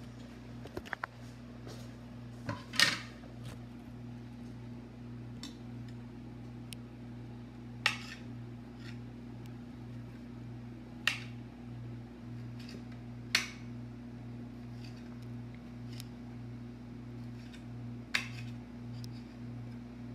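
Table knife clinking against a ceramic plate while cutting a meatball into pieces: a handful of sharp clicks a few seconds apart, the loudest about three seconds in, over a steady low hum.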